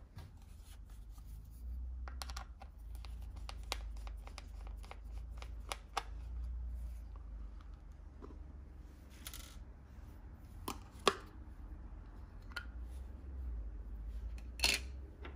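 Small plastic clicks, taps and scratches of a handheld digital multimeter being handled as its battery cover is unscrewed and lifted off, with two sharper clicks, one about eleven seconds in and one near the end.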